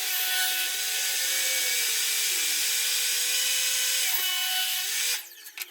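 Power saw cutting a cherry board: a steady whine whose motor pitch wavers slightly under load. It cuts off about five seconds in.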